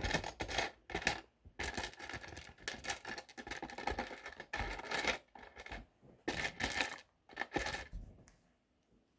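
Plastic LEGO pieces clicking and rattling as they are handled, sorted and pressed together, in quick irregular runs that die away near the end.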